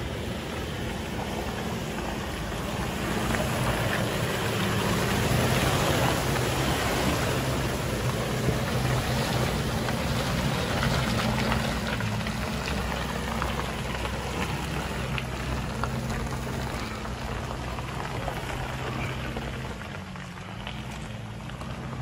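A lifted pickup truck's engine pulls steadily through deep mud while its mud-terrain tyres churn and spatter mud. The noise is loudest as it passes close, from about 3 to 12 seconds in, then fades as it moves away. Near the end the engine note dips briefly.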